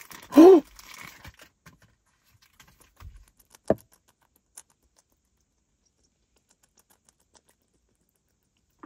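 A short vocal sound just after the start, then faint clicks and taps of a disposable vape being handled close up, with a low thump and a sharper click about three and a half seconds in. After that it is near silence.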